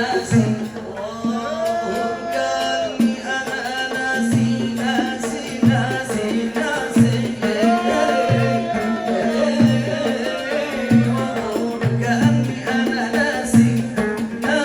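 Yemeni song music: a regular low drum beat under a winding melodic line.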